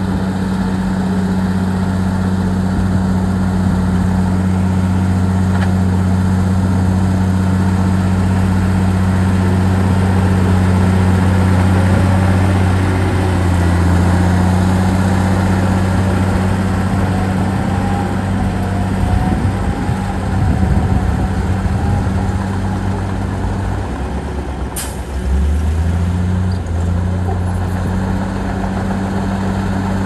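Heavy diesel engine of earthmoving machinery running steadily, its note wavering and shifting under changing load about two-thirds of the way through. A single brief sharp hiss-like sound cuts through about 25 seconds in.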